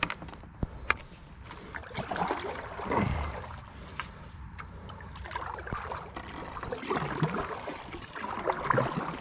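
Kayak paddle strokes in calm river water: swishes and drips from the paddle blades, several strokes a few seconds apart, with a few sharp knocks near the start.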